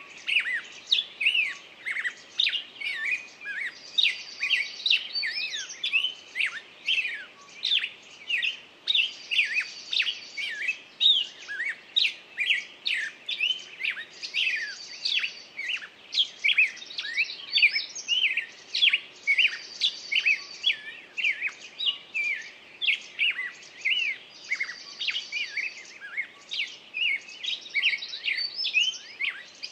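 A chorus of songbirds chirping densely and without pause, many quick sharp notes overlapping. Through it, a high, fast trill repeats about every five seconds.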